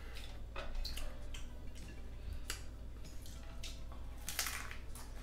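Hard-shell taco being bitten and chewed close to the microphone: irregular crunches of the crisp corn shell with wet mouth sounds, the longest crunch about four seconds in.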